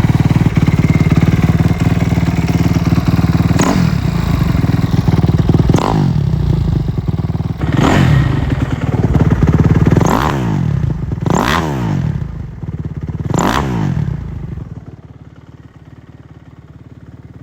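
Kawasaki KX250F four-stroke single-cylinder dirt bike engine running, revved sharply about six times in a row. It goes much quieter for the last few seconds.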